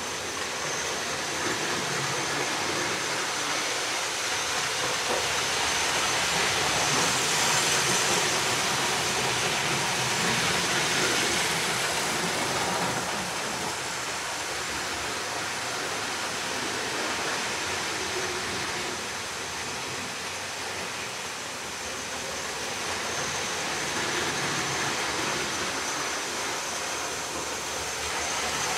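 Hornby APT model train with a freshly serviced ringfield motor running around an OO gauge layout: a steady rumble of motor and wheels on the track that swells and fades as it moves nearer and farther, getting louder near the end as it comes up to the camera.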